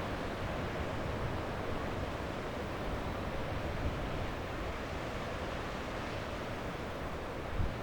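Ocean surf washing onto a beach: a steady rushing wash with a low rumble underneath, and a brief low thump near the end.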